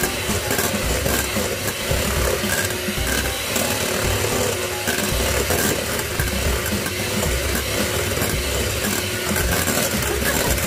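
Electric hand mixer running, its beaters whisking eggs in a stainless steel bowl.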